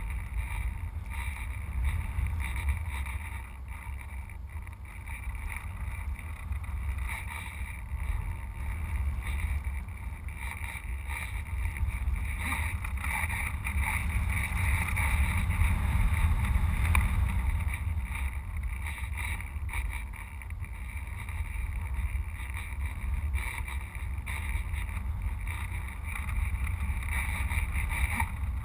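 Airflow rushing over a GoPro camera mounted on top of a model sailplane in flight: a steady low rumble of wind buffeting that swells in the middle and eases again.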